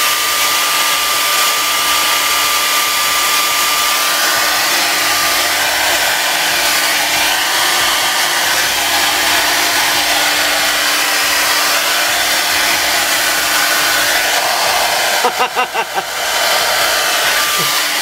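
Handheld hair dryer running steadily on hot air, heating the glue of a paper card pocket on an LP jacket to soften it. Its rush wavers briefly about fifteen seconds in.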